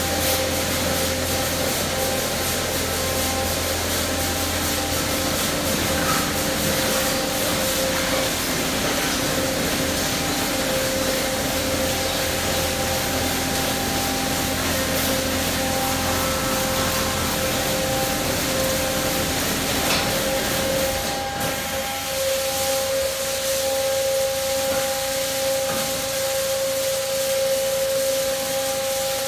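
Autec Evolution soft-cloth car wash at work: rotating cloth brushes rubbing and slapping over a car amid water spray, with a steady machine whine underneath. A low hum drops away past the middle.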